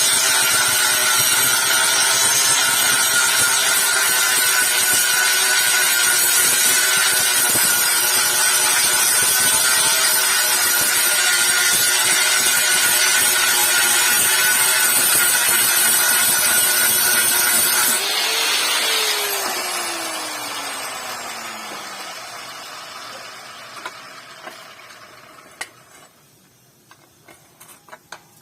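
Electric grinder running steadily with a high whine and hiss as it grinds a steel machete blade. About two-thirds of the way through it is switched off and winds down, its pitch falling and fading over several seconds, followed by a few light clicks.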